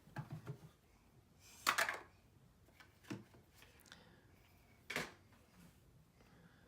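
Quiet handling of small objects: a short rustling scrape about two seconds in, then two sharp single clicks, one near three seconds and one near five.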